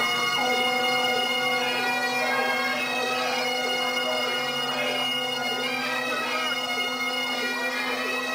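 Great Highland bagpipes playing a tune over their steady drones.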